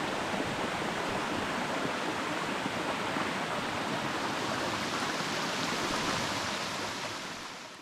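Waterfall rushing steadily, an even wash of falling water that fades out near the end.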